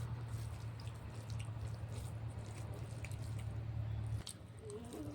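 Close-up eating sounds: wet chewing with small scattered clicks, over a low steady hum that drops away about four seconds in.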